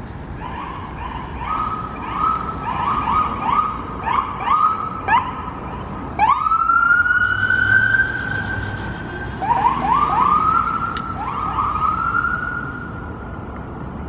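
Ambulance siren passing, alternating between rapid short rising whoops and a long, slowly rising wail. It fades near the end, over low traffic noise.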